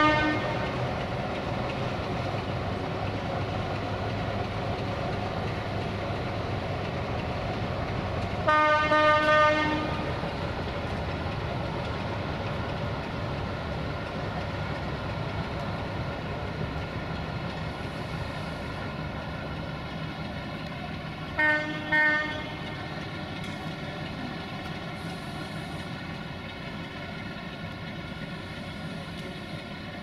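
Horn of a CFR 060-DA1 (LDE2100) diesel locomotive. One blast cuts off just after the start, a longer blast of about a second and a half comes around nine seconds in, and two short toots follow about 21 seconds in. Under the horn the locomotive's Sulzer diesel engine runs steadily.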